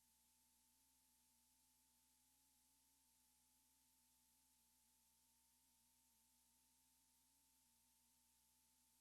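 Near silence: only a faint steady electrical hum and hiss, with no other sound.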